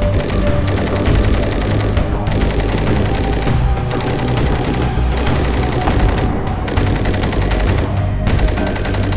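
SAR 762 MT belt-fed machine gun in 7.62×51 mm NATO firing automatic bursts, about five of them with short breaks between. Background music plays underneath.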